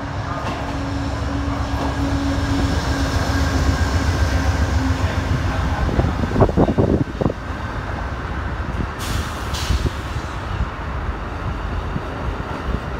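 An Amtrak train passes at close range: a GE Genesis diesel locomotive's engine drone, then bilevel Superliner cars clattering over the rails with a loud burst of knocks and clanks about six seconds in. Two short hisses of released air come a few seconds later.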